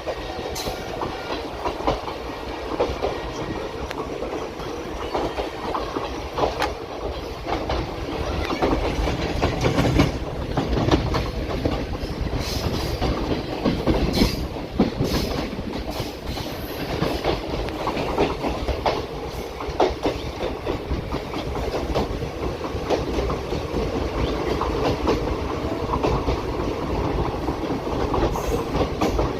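Passenger train running on the rails, its wheels clacking continuously over rail joints under a steady rumble, a little louder for a stretch in the middle.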